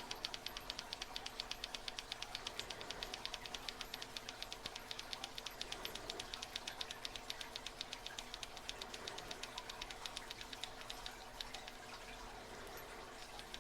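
Faint, rapid, even clicking from a tubular lock pick being turned in a tubular lock while it picks the pins. The clicking fades briefly near the end.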